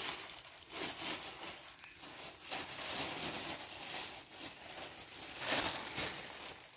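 Thin plastic bag crinkling and rustling as it is handled, in irregular bursts, loudest about five and a half seconds in.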